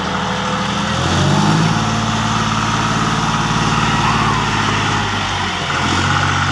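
John Deere 5050D tractor's three-cylinder diesel engine running as the tractor drives through puddled paddy mud, a steady note that steps up in pitch about a second in and shifts again near the end.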